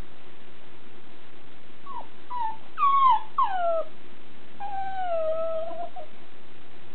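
Papillon dog whining for a toy bone she can't get out of a box: a few short whines falling in pitch about two seconds in, then one longer drawn-out whine near the end.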